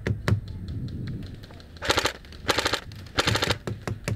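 Airsoft guns firing: a couple of single shots near the start, then three short rapid-fire bursts about two, two and a half and three and a quarter seconds in.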